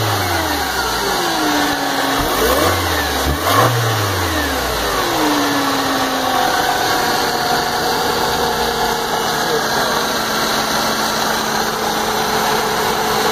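Mercedes-Benz E200 Kompressor's supercharged four-cylinder petrol engine being blipped: the revs fall back at the start, rise and fall twice about three to four seconds in, then settle to a steady idle with a light whine over it.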